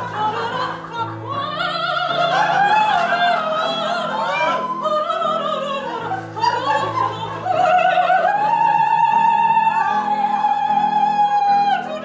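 A woman sings an operatic melody with vibrato over steady low accompaniment, climbing to a long held high note in the second half.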